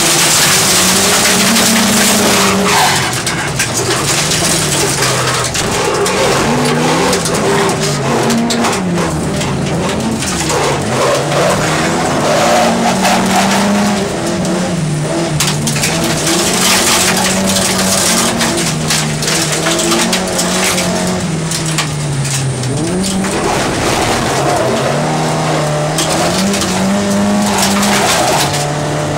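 Rear-wheel-drive Opel Kadett race car's engine, heard from inside the cabin, revving up and down over and over as the throttle opens and closes. Its tyres make a constant rushing noise on the loose dirt track.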